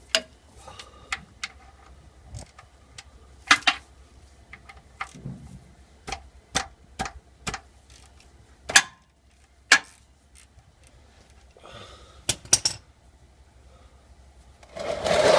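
Metal hand tool clicking and clinking against the oil drain plug under the engine, a run of sharp, irregularly spaced knocks as the wrench is fitted and worked on the plug. Near the end comes a louder rushing, scraping noise of about a second and a half.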